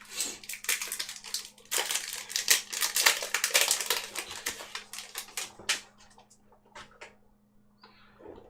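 Foil booster-pack wrapper crinkling and tearing open: a dense run of crackles for about six seconds, thinning to a few faint clicks near the end.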